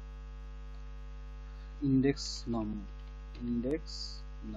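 Steady electrical mains hum in the recording, with a few short spoken syllables in its second half.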